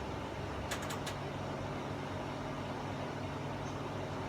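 Steady low background hum, with a quick run of four small clicks under a second in.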